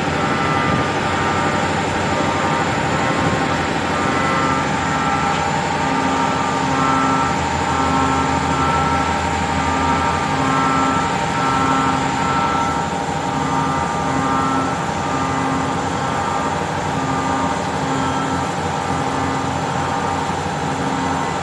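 OKK VP400 vertical machining centre with a 20,000 rpm spindle, running with a steady high whine and a second tone that pulses on and off about once a second.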